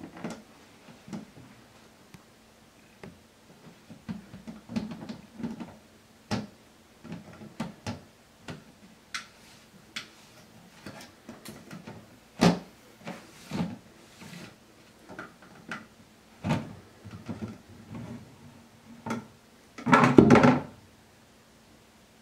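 Cat pawing and scratching at the screw-top lid of a Gamma2 Vittles Vault plastic pet-food container: irregular knocks and scrapes of plastic. Near the end comes a louder clatter lasting about a second as the lid comes off the bin.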